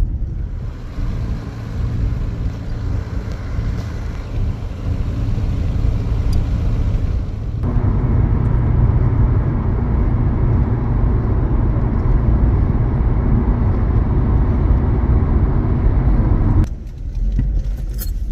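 A motor vehicle driving, with steady engine and road rumble. The noise grows louder and fuller about seven and a half seconds in, then drops suddenly near the end.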